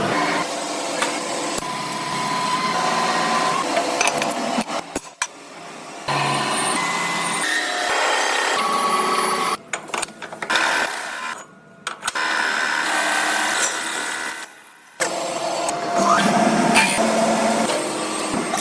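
Factory metalworking sounds: machine tools and power tools running, in short stretches that change abruptly every few seconds, with brief steady whines among the noise.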